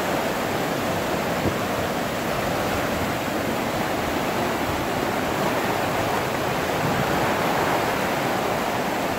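Fast-flowing muddy floodwater rushing past in a steady, unbroken torrent.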